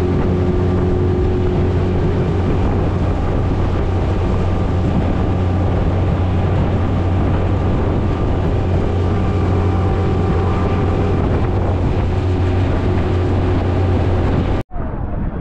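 Motorboat engine running steadily at cruising speed, a constant low hum, with wind and water rushing past the hull.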